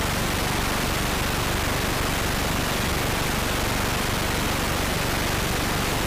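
Loud, steady static hiss spread evenly across all pitches, with no voice coming through. It is the sound of a broken live-stream audio feed, where noise has replaced the studio microphones.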